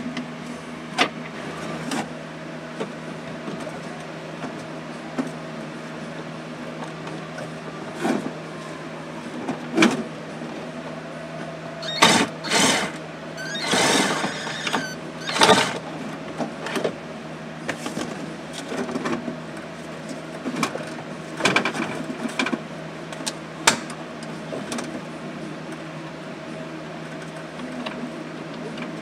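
Tool and handling noise from work under a car dashboard while its top screws are driven in: scattered clicks and knocks, with a few louder, longer bursts near the middle, over a steady hum.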